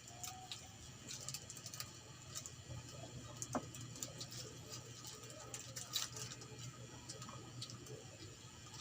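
Faint eating sounds at a table: scattered light clicks and taps, irregular, over a low steady hum.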